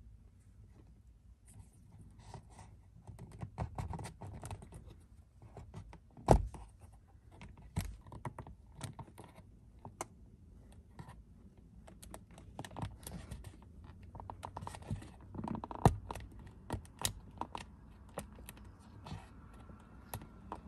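Small plastic clicks, taps and scrapes of a round push-button switch being worked and pressed into a hole in a truck's plastic lower dash panel, with a sharp click about six seconds in and another about sixteen seconds in.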